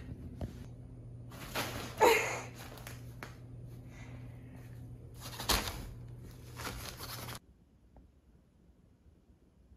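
Nylon cat play tunnel rustling and crinkling in several bursts as a cat moves and pounces inside it, the loudest about two seconds in, over a low steady hum. The sound cuts off to near silence about seven seconds in.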